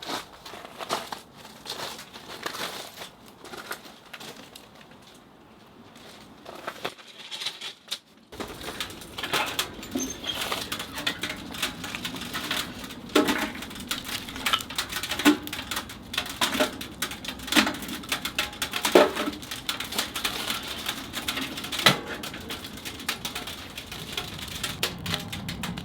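Firewood crackling in a wood-burning stove: irregular pops and snaps, sparse at first, then denser and louder from about eight seconds in.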